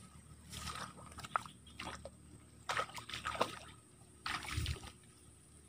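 Swishing through tall wet grass and sloshing in shallow swamp water as someone wades in, in a few short separate bursts.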